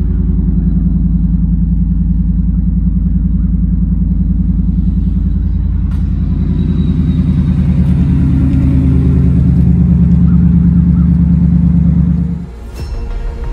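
Roush-supercharged 5.0-litre V8 of a Ford F-150 idling with an even, rapid exhaust pulse. It rises a little in pitch and loudness in the second half, then cuts off sharply near the end.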